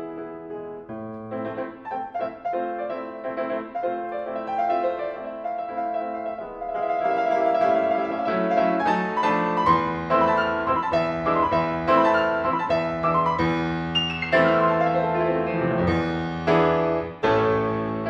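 Fazioli grand piano played solo in a classical piece: quieter, sparser phrases at first, then fuller and louder from about seven seconds in with quick runs of notes.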